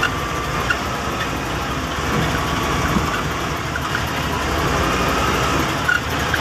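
Heavy diesel engine of logging machinery running steadily, with wind buffeting the microphone.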